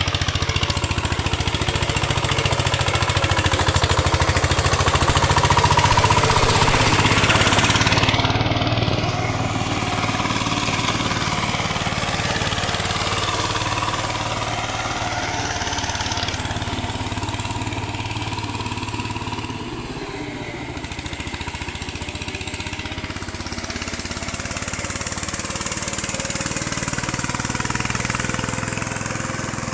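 A VST power tiller's engine running steadily with a fast, even chugging while working the field. It is loudest for the first several seconds, then settles a little quieter.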